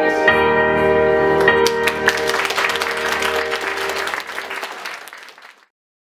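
The song's final chord held out, then audience applause starting about a second and a half in and fading out to silence near the end.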